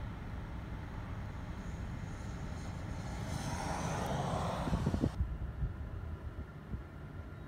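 Low rumble of slow or idling highway traffic. A car-carrier truck's engine and tyre noise swells about three to five seconds in as it draws alongside. Just after five seconds the sound abruptly turns duller.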